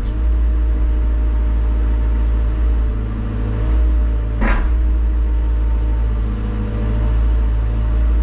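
Hyundai HX140AL excavator's diesel engine running steadily, a loud low hum heard from inside the cab, easing slightly a couple of times, with one brief knock about four and a half seconds in.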